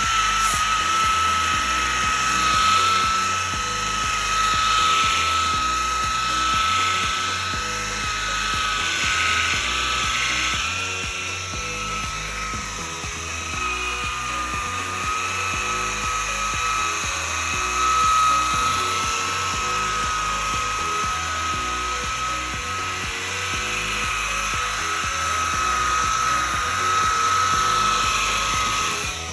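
Handheld electric power tool working a boat's gel coat, its motor running with a steady high whine that wavers slightly in pitch.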